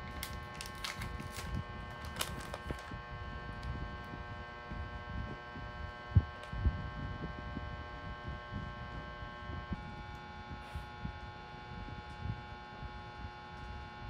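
Steady electric motor hum with many fixed tones, shifting slightly about ten seconds in. Over it, a plastic snack wrapper crinkles in the first few seconds, and a few soft knocks of handling come later.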